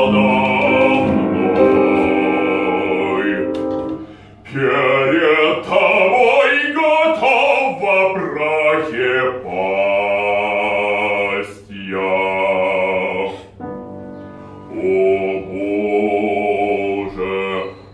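Operatic singing: a voice holding long, sustained notes, broken by a few short pauses.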